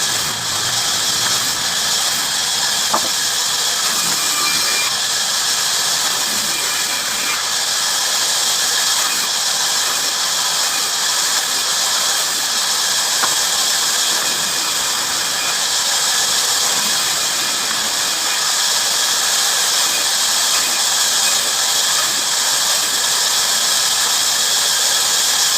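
Bandsaw blade cutting through wood, a steady high hiss with a faint tick now and then.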